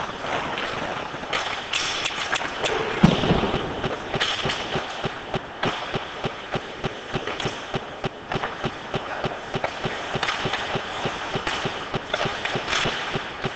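Ice hockey play echoing in an indoor rink: skates on the ice and sticks and puck clacking, with short sharp knocks about three a second and one loud thud about three seconds in.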